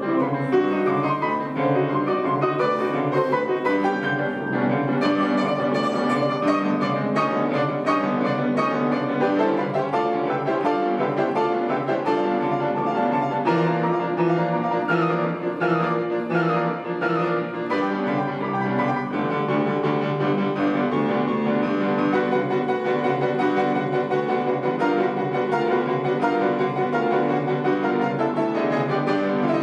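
A piano duo playing classical music, with dense chords and a melody line running without a break.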